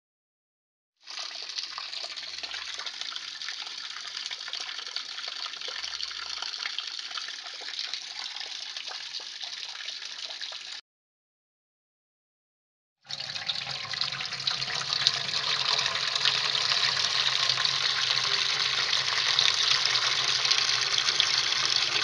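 Two separate recordings of water rushing steadily. The first starts about a second in and cuts off abruptly before the middle; after two seconds of silence a second, louder one starts with a low rumble beneath it.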